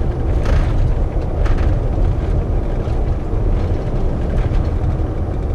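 Hummer H2 under way: steady low road, engine and wind noise heard from inside the cab.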